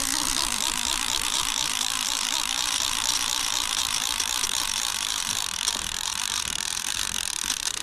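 Fishing reel cranked steadily, reeling in line: a fast, continuous clicking whir of the reel's gears that stops near the end.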